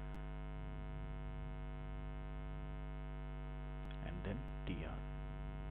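Steady electrical mains hum, a buzz with many overtones, from the recording setup. A few faint keyboard clicks come through it, with a short faint vocal murmur a little past four seconds in.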